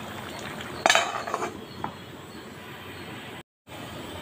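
A steel lid clinks against the rim of the kadai about a second in, followed by a couple of lighter taps, over the steady low hiss of the curry simmering. The sound cuts out briefly near the end.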